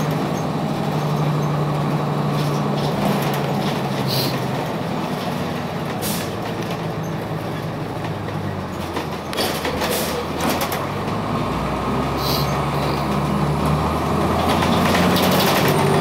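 Cummins ISC diesel engine of a 2002 Blue Bird CS transit bus running as the bus drives, heard from inside the cabin. Its pitch shifts partway through, and a deeper drone comes in about two-thirds of the way in. Several short clicks and rattles are heard over it.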